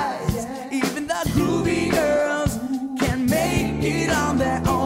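Children's worship song: a voice singing over a band with bass and a steady beat, on the lines "even the cool guys, even the groovy girls" and "can't make it on their own to their eternal home".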